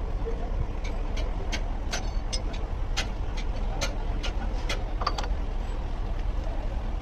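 Steady low rumble with a run of about a dozen light, sharp clicks between about one and five seconds in, from hands handling a truck wheel hub bearing and tools while packing it with grease.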